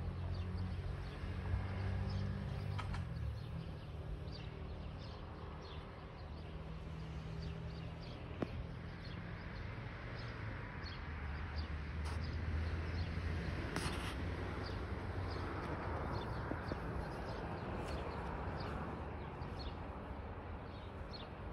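Outdoor street ambience: small birds chirping now and then over a steady low background rumble, with an occasional faint click.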